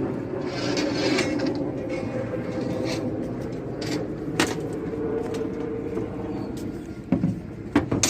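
Building-site background din with a few sharp knocks, the loudest cluster near the end.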